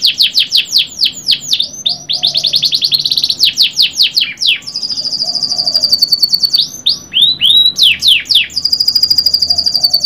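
Domestic canary singing a long, unbroken song: fast trills of rapidly repeated downward-sweeping notes, alternating with stretches of a high, very rapid, even rolling trill.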